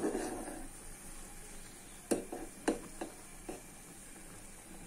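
Metal ladle clacking against the rim of a pot of boiling noodles as they are stirred: a sharp clack at the start, then four more between about two and three and a half seconds in, over a steady faint hiss.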